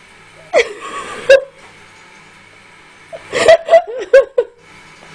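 A person laughing in two bouts: a short laugh about half a second in, then a run of several quick chuckles in the second half.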